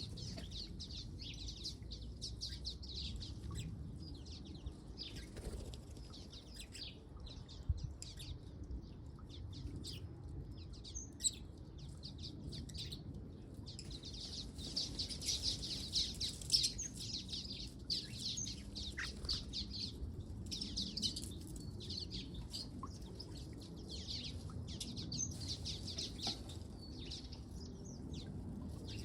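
Water rails calling: a dense, unbroken run of short, sharp, high-pitched calls, busiest in the middle stretch, over a low background hum.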